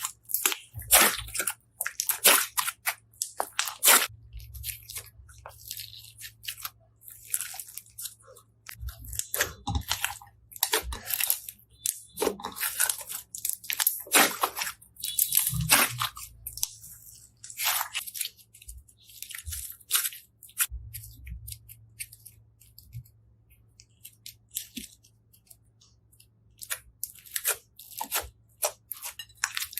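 Slime being pressed and squeezed, making irregular crackles and pops, some in quick clusters and some single.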